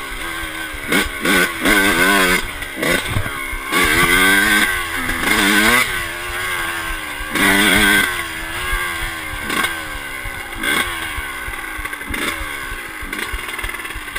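Yamaha YZ125 single-cylinder two-stroke motocross engine revving up and down in quick rises and falls as it is ridden, then running at lower revs with short throttle blips over the second half.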